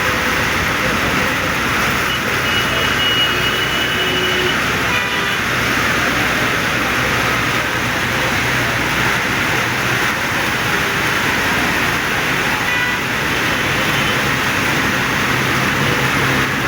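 Heavy rain pouring down steadily, a loud, even hiss.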